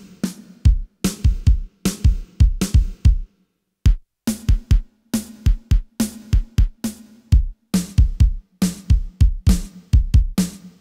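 Yamaha PSR-E323 keyboard playing a drum-kit beat from its preset sounds: kick and snare hits in a steady rhythm. There is a short break about three and a half seconds in.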